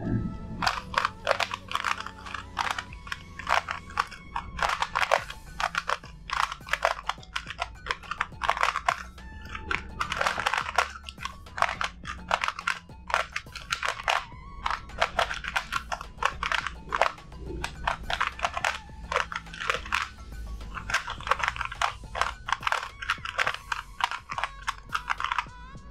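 White-base 6 cm QiYi Sail 3x3 speedcube being turned quickly by hand: a rapid, irregular clatter of plastic layers clicking into place, with short pauses between bursts of turns. Soft background music runs underneath.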